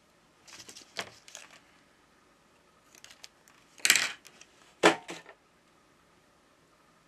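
Scissors snipping double-sided adhesive tape, a short run of small clicks. About four seconds in comes a louder rustle, then a single sharp click of small parts being handled on the opened phone.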